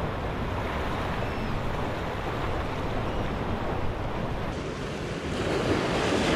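Ocean surf washing against jetty rocks, with wind buffeting the microphone as a steady low rumble; the noise grows louder near the end.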